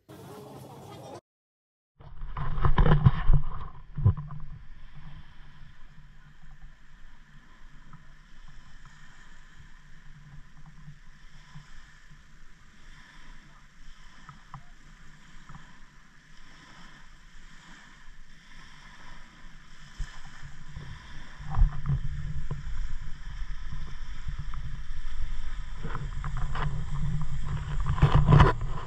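Seaplane engines running out on the water, a steady drone with a low rumble that grows louder about three-quarters of the way through, as for a take-off run. Wind buffets the microphone, loudest about two seconds in.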